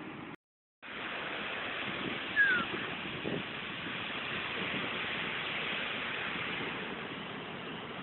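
Heavy surf breaking and washing up the beach in a steady rush of noise. The sound drops out for about half a second near the start, and a short, high, falling chirp stands out about two and a half seconds in.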